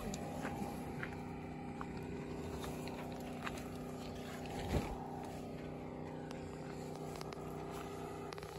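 A steady low engine-like hum in the background, with light scattered clicks and rustles and one brief louder knock about halfway through.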